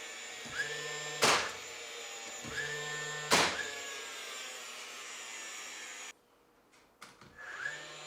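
A steady motor hum with two sharp bangs about two seconds apart, each just after a short pitched squeal; the hum cuts off suddenly about six seconds in.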